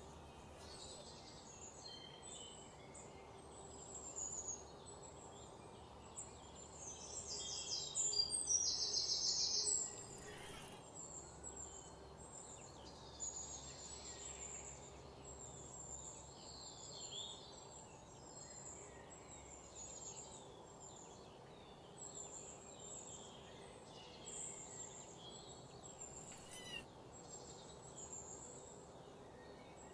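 Birds calling outdoors: many short, high chirps repeated throughout, with a louder, rapid rattling trill about eight seconds in that lasts a couple of seconds.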